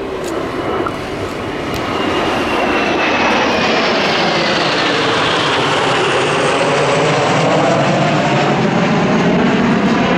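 A formation of Kawasaki T-4 jet trainers flying over with their smoke on. The jet noise grows over the first couple of seconds and then stays loud, with a high whine that falls in pitch as the jets pass.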